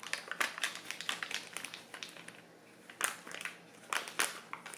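Foil pouch of molding powder crinkling and crackling in irregular bursts as it is squeezed and tipped to empty the powder into a tub of water.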